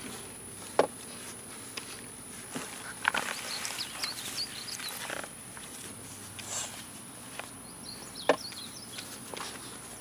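Outdoor ambience: a steady high insect drone with a few faint chirps, broken by two sharp clicks, one under a second in and one near the end.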